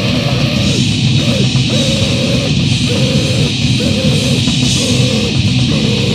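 Raw, heavily distorted noise-grind band playing: a loud, dense wall of distorted guitar and low end, with a short pitched figure repeating over and over, roughly once a second.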